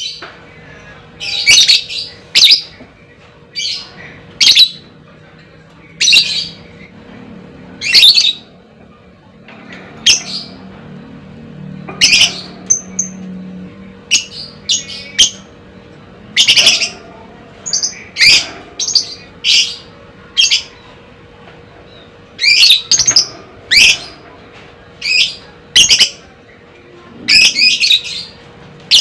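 Fighter lovebird calling: short, sharp, high-pitched chirps repeated every second or two, some in quick clusters.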